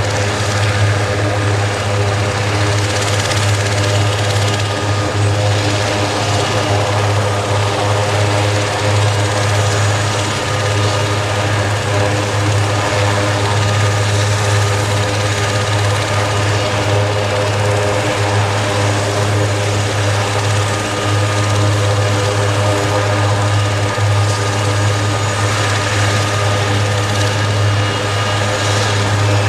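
Aerospatiale AS332L1 Super Puma twin-turbine helicopter running on the ground with its rotors turning. It makes a loud, steady drone with a strong low hum under several steady whines.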